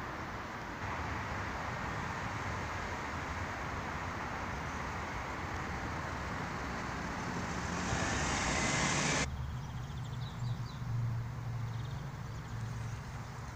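Road traffic: a steady rush of passing cars that grows louder and brighter about eight seconds in as a vehicle goes by close, then cuts off abruptly a second later, leaving a low steady hum.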